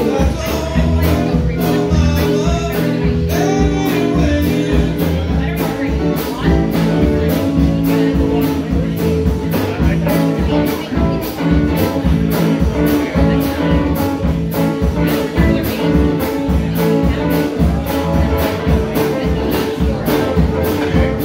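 Live blues-rock band playing: electric guitars, bass guitar and a drum kit keeping a steady beat, with a woman's lead vocal in the first few seconds.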